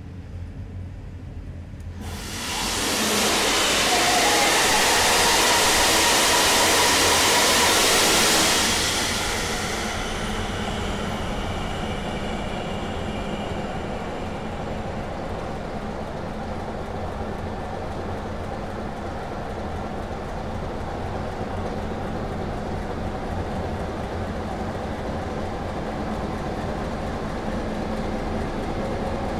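Bergen B35:40 gas engine starting: a loud hissing rush begins about two seconds in and lasts some seven seconds, then dies down as the engine settles into steady running.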